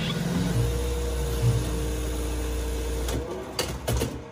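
Jack industrial sewing machine running a steady line of stitches through waistcoat cloth and its silk lining for about three seconds, then stopping. A few sharp clicks follow near the end.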